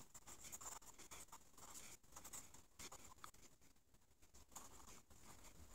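Faint scratching of a pen writing on a pad of lined paper, in short irregular strokes.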